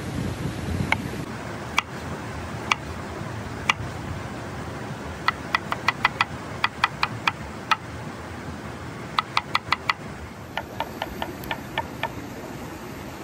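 Cleaver chopping vegetables on a wooden cutting board: single chops about a second apart, then quick runs of chops, over a steady hiss.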